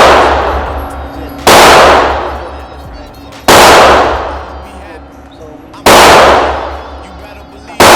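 Single gunshots about every two seconds, four in all, each sharp crack followed by a long echoing decay.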